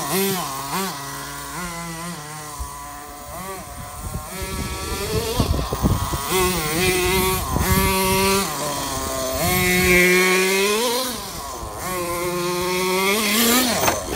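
Small nitro glow engine (Kyosho GX21) in a Hot Bodies Lightning II RC buggy, revving up and down again and again as the car is driven, a buzzing whine that rises and falls in pitch. At the very end the buggy rolls over and the engine cuts out abruptly in a stall.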